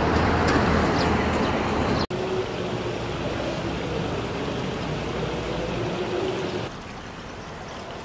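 A shallow stream babbles and ripples over stones. It is preceded by about two seconds of outdoor traffic noise that cuts off abruptly, and the water noise becomes a little quieter near the end.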